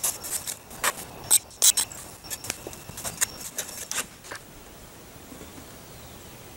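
Shovel scraping and crunching in sand, a quick run of sharp scrapes for about four seconds, then only a quiet hiss.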